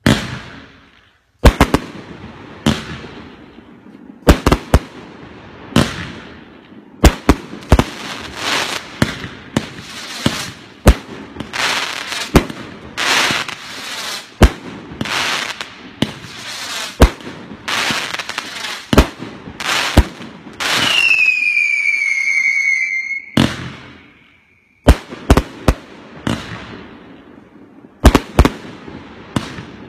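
A 138-shot firework cake with mixed 1.2- and 2-inch tubes, firing shot after shot: sharp launch thumps and aerial bursts about one or two a second. About two-thirds of the way through, a falling whistle lasts a couple of seconds, then a brief pause before the shots resume.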